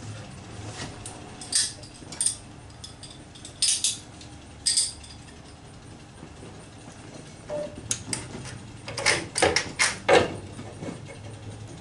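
Scattered sharp metallic clicks and clinks of hand work on engine-bay fittings, a few single clicks in the first five seconds, then a quick cluster of clicks and clanks from slip-joint pliers squeezing a hose clamp near the end.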